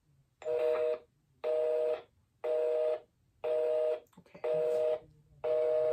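Phone speaker playing a two-tone beep that repeats about once a second, six beeps with short gaps. The cadence matches a busy signal.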